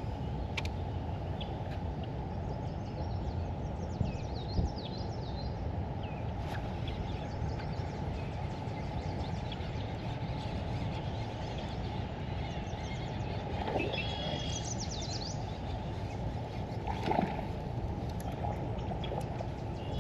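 Outdoor ambience: a steady low background noise with small birds chirping in short clusters, a few seconds in and again past the middle.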